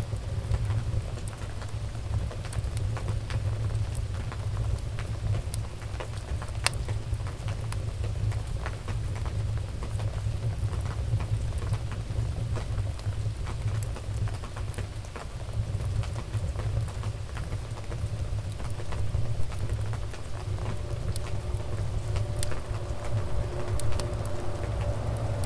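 Wood fire burning in a fireplace: a steady low rumble of flames with irregular sharp crackles and pops. A faint steady hum joins in near the end.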